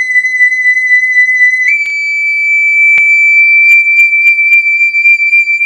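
A steady high pure tone, whistle-like, that wavers in loudness at first and steps up slightly in pitch a little under two seconds in, then holds; a few faint clicks sound over it.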